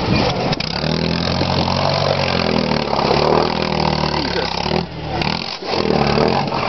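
Vintage Chevrolet mud-plug trials car's engine revving under heavy load as the car bogs down in soft creek-bed mud. The revs rise and fall, drop away briefly about five seconds in, then pick up again.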